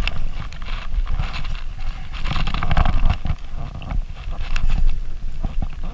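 Wind rumbling on the microphone, with irregular knocks and rustles as the rod and gear are handled against a plastic kayak.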